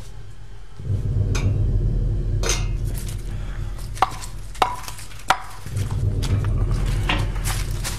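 Three sharp metallic clinks with a short ring, a little over half a second apart, over a steady low rumbling drone.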